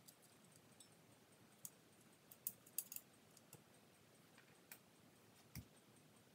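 Faint, sharp little clicks from small parts being handled at a ceiling fan's switch housing, several close together about two to three seconds in, then a soft knock near the end.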